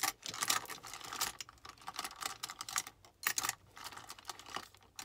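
Hands rummaging through plastic makeup cases and brushes: irregular clicks and clatter of small plastic pieces knocking together, dying away near the end.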